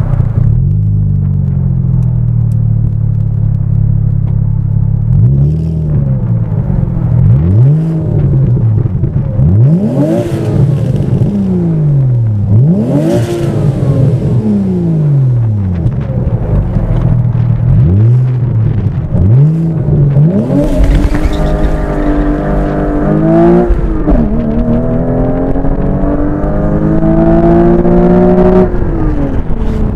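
2003 Porsche Boxster S 3.2-litre flat-six breathing through a Stebro race muffler and Fabspeed secondary-cat bypass pipes, idling and then revved in a string of quick blips that rise and fall. About two-thirds of the way in it is launched hard: the engine note climbs, drops at one upshift, then climbs again as the car pulls away.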